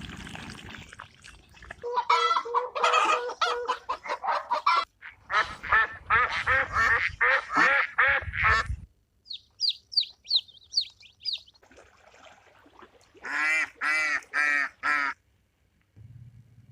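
Domestic fowl calling: dense runs of rapid pitched calls in the first half, a string of quick high chirps about ten seconds in, then four evenly spaced calls near the end.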